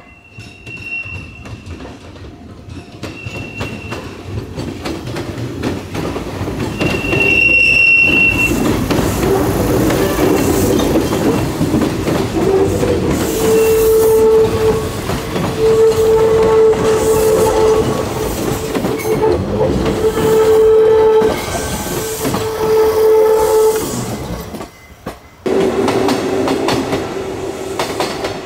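Kintetsu electric train running through the station, growing louder over the first several seconds, with rail clatter and an on-and-off wheel squeal through the middle stretch.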